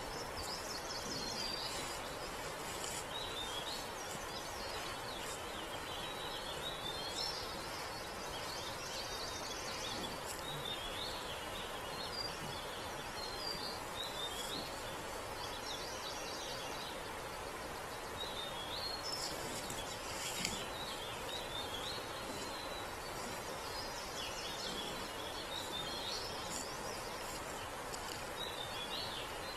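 Forest birds calling in short, repeated chirping phrases every few seconds, over a steady hiss from a trail camera's microphone.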